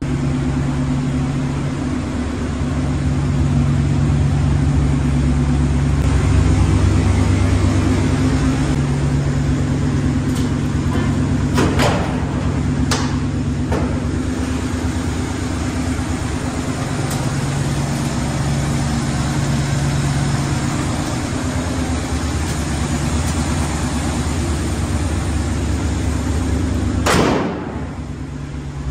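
1970 Dodge D-series pickup's 318 small-block V8 running steadily. A couple of brief sharp noises come around the middle, and a louder one near the end, after which the sound drops a little.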